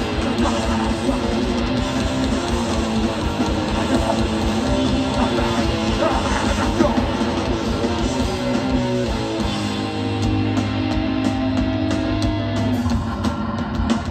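A hardcore punk band playing live, with distorted electric guitar, bass and drums. About two-thirds of the way through, the band holds a low chord while sharp drum and cymbal hits come through.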